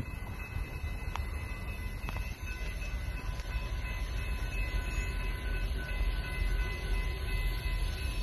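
Freight train approaching a grade crossing: a steady low rumble with faint steady high tones that fade out about five seconds in.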